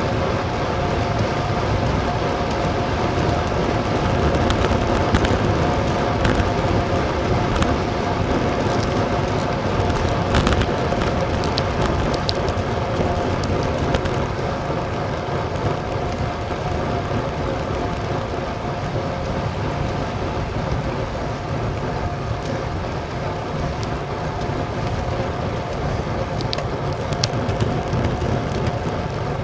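Wind rushing over the microphone of a bicycle-mounted action camera, with tyre noise on asphalt, as a road bike rides at about 20 mph. A steady hum runs under the noise, and a few sharp ticks and rattles come from road bumps.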